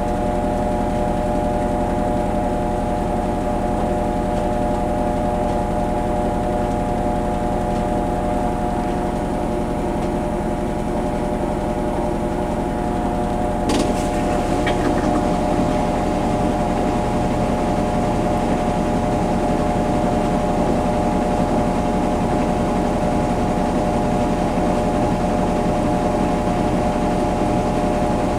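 Kenmore Series 500 high-efficiency washing machine in its spin cycle: a steady motor whine over a low hum. A sharp click about halfway through is followed by a smaller one.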